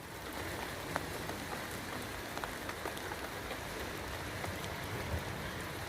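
Steady rain falling: an even hiss with a few sharper drops landing now and then.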